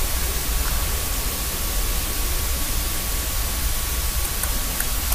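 Steady hiss and low hum of an old TV sports broadcast, with a few faint clicks of a table tennis ball off bats and table, most of them near the end as a rally is played.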